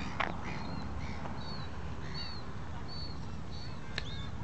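A small bird chirping repeatedly in short high notes about once a second, over a steady low rumble, with two sharp clicks, one just after the start and one near the end.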